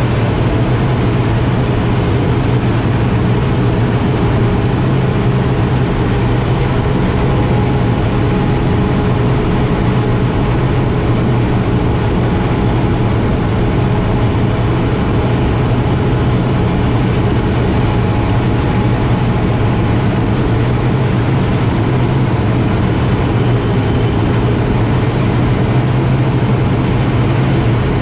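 Air Tractor 802 agricultural plane's turboprop engine and propeller running steadily in flight, heard inside the cockpit: a loud low hum with a fainter steady whine above it.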